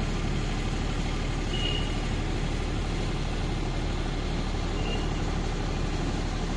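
Generator engine running steadily, a constant low hum and drone with no change in level. Two brief high beeps sound over it, a few seconds apart.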